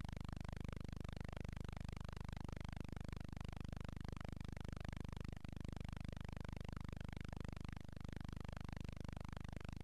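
Steady low electrical hum with a constant hiss: the noise of a silent film's empty sound track, with no sound from the scene itself.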